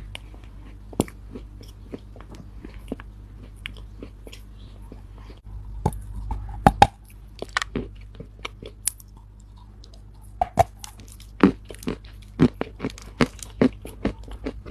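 Soft Chinese loess, a dry compacted earth, crunching in sharp irregular crackles. There is a rougher, denser stretch about halfway through and a quicker run of crunches near the end.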